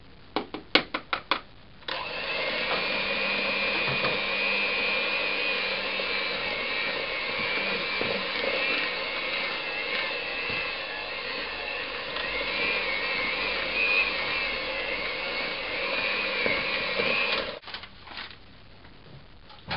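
A few quick knocks, then an electric hand mixer runs steadily for about fifteen seconds with a motor whine, beating flour into muffin batter, and cuts off abruptly near the end.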